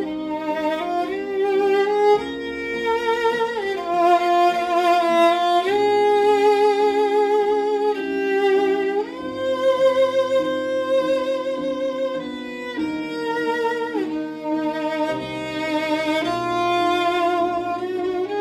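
Solo violin, bowed, playing a slow melody of long held notes with a wide vibrato.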